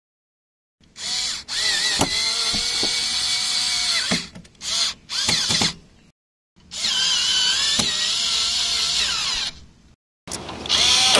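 Cordless drill-driver driving screws into the raised bed's base frame to tighten it down. It comes in several runs of a few seconds each, with a few short blips between them; the motor's whine sags and rises as each screw bites.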